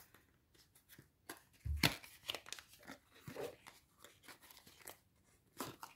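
A small cardboard box being opened by hand: paper and cardboard rustling and crinkling in short bursts as the flaps are folded back, with a soft thump a little under two seconds in.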